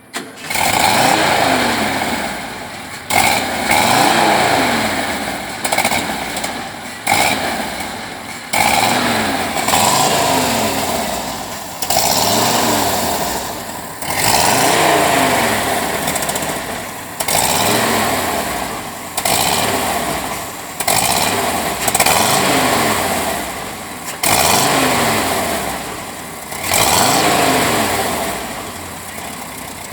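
VW Combi engine revved over and over through an exhaust with two mufflers. Each throttle blip comes in sharply and the pitch then falls back, about every one and a half to two seconds.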